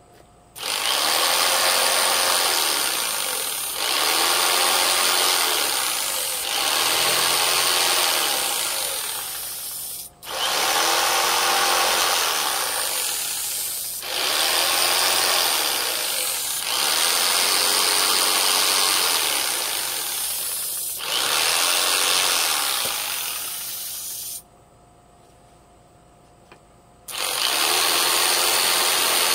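Electric power tool cutting into wood in a run of passes of a few seconds each, its motor pitch wavering under load. It stops for about two and a half seconds near the end, then starts again.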